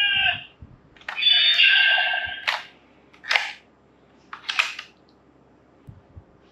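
DX Ultraman Blazer Brace toy playing electronic sound effects through its small speaker: a pitched electronic tone that ends just after the start, a click about a second in, a second pitched tone lasting about a second, then three short hissing bursts. A few faint knocks near the end.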